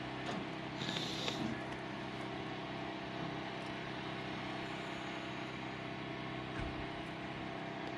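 A steady engine-like drone, even in level and pitch, with a short hiss about a second in.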